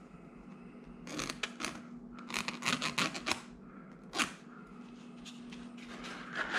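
Vertical blind slats rustling and scraping as they are handled and lined up against each other. The sound comes in a few short bursts, over a faint steady hum.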